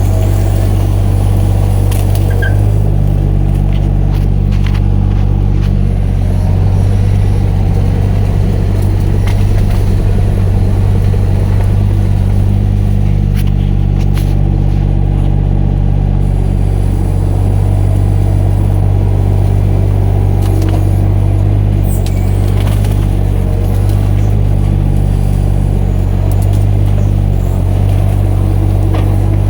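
Mini excavator's engine running steadily under work, its pitch dipping and rising slightly a few times as the load changes, with scattered sharp clicks on top.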